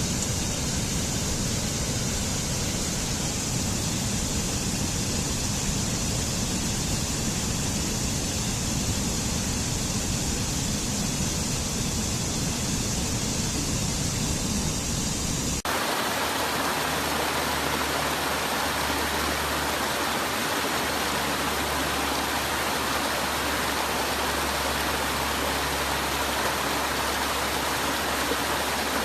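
Waterfall: a steady rush of falling water. About halfway through it cuts abruptly to a different rush of water, brighter and with less rumble.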